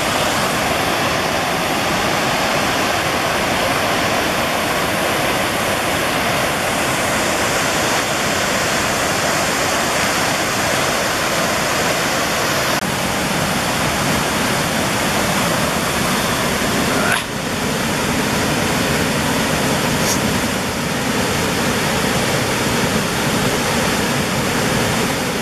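Waterfall: a steady, loud rush of whitewater pouring over a wide, stepped rock cascade.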